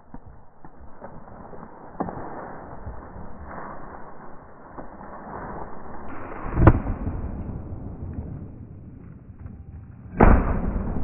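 Two shotgun shots about three and a half seconds apart, each a sharp crack followed by a low rolling boom, over a steady rustling background.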